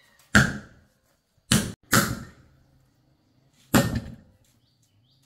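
Four heavy knocks at uneven spacing, each with a short ringing tail; the second and third come close together.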